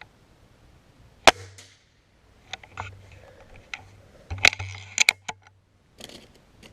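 A .22 calibre air rifle fires a single sharp shot about a second in. Several smaller sharp clicks and clacks follow.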